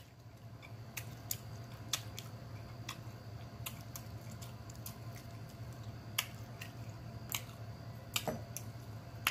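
Close-miked chewing of a mouthful of chitterlings: soft wet mouth clicks and smacks about once a second, over a low steady hum.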